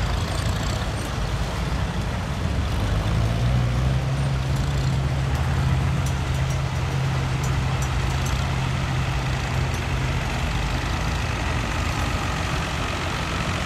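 Engine of a classic farm tractor running steadily as it drives slowly past, a low, even drone that drops a little in pitch about three seconds in.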